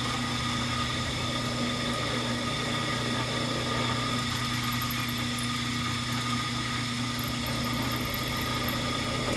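Drill press motor running steadily with a smaller bit boring a bolt hole through a metal sprocket, with faint high squeals of the bit cutting now and then.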